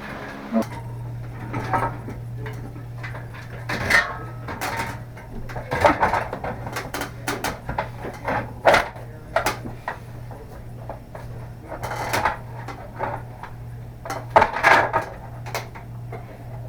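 Scattered clicks, knocks and rattles of a light fixture and its mounting hardware being handled and fitted, over a steady low hum that starts about half a second in.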